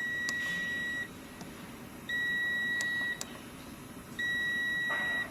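Electronic beeper sounding a steady high-pitched tone in three beeps, each about a second long with about a second's gap between them, with a few faint clicks in between.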